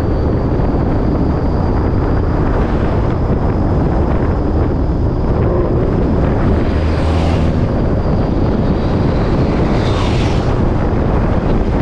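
A Ford Mustang's exhaust running steadily, a loud, constant low rumble with wind noise on the microphone. Two brief hissy swells come through, one after about seven seconds and one near ten seconds.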